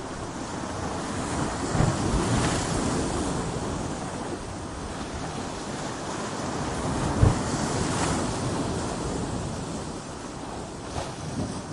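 Ocean surf breaking against coastal rocks: a continuous rushing wash that swells and ebbs, with two heavier waves hitting about two seconds in and about seven seconds in.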